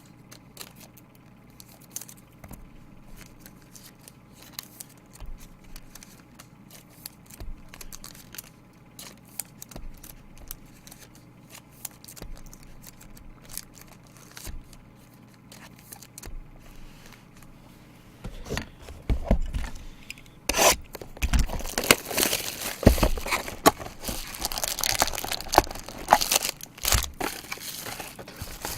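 Trading cards and wrappers handled with faint scattered ticks, then, from about two-thirds through, loud crinkling and tearing of plastic wrap and foil packs as a new box of baseball cards is opened.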